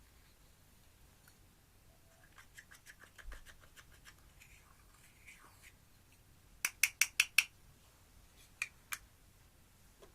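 Slime being handled, with a run of small crackling clicks, then five loud sharp clicks in quick succession and two more near the end.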